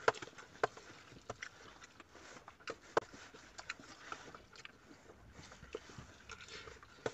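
Spoons clicking and tapping against lunch containers, with chewing: light, scattered clicks at irregular intervals.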